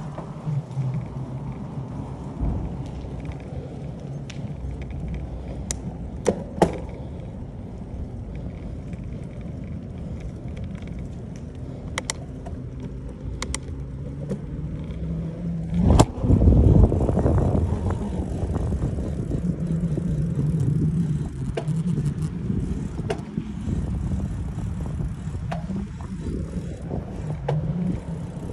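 Bicycle ride over asphalt: a steady low rumble of tyres on the road with wind on the microphone, and a few sharp clicks and knocks from the bike. The loudest is a sharp knock about halfway through, followed by a louder rush of rumble for a couple of seconds.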